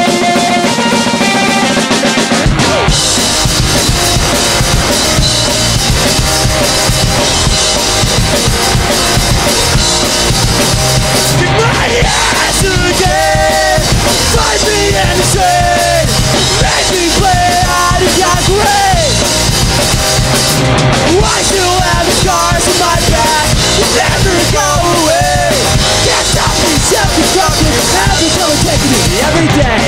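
Rock band playing live: a guitar alone at first, then drum kit, bass and guitars come in together about two and a half seconds in and play on steadily, with a bending lead line over them.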